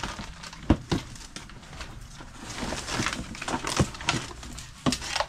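Rummaging through a cardboard box by gloved hands: rustling of fabric, plastic and cardboard with scattered knocks and clicks as items are shifted and lifted out.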